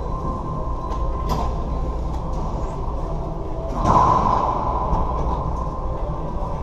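Racquetball rally: a few sharp ball strikes off racquets and the court walls, with one louder, ringing hit about four seconds in, over a steady background hum.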